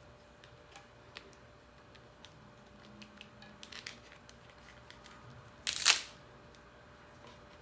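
Dungeness crab shell being handled and broken apart by hand: scattered small clicks and crackles, then one loud, sharp crack about three-quarters of the way through.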